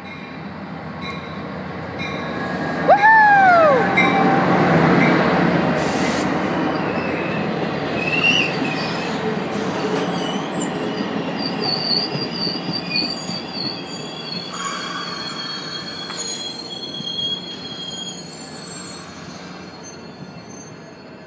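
Caltrain passenger train led by an F40 diesel locomotive passing close by, the rumble of wheels on rail loudest in the first half. From about eleven seconds in, the steel wheels give a high, wavering squeal that fades away toward the end.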